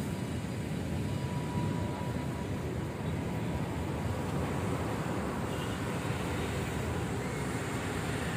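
Steady rumble of a car driving: road and engine noise heard while moving, without any sudden events.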